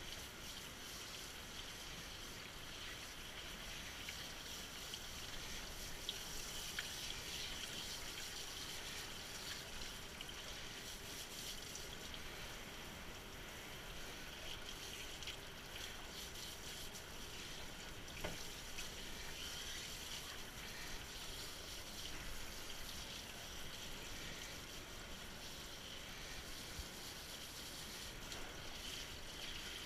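Water spraying steadily from a handheld tub sprayer onto a dog's wet coat and into the grooming tub, with a couple of brief knocks.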